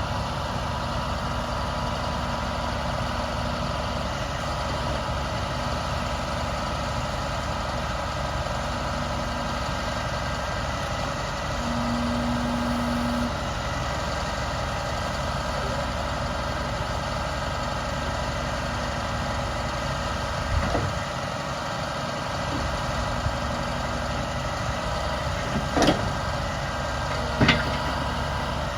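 A truck's MaxxForce DT turbo diesel idling steadily. A few short knocks sound over it in the last third.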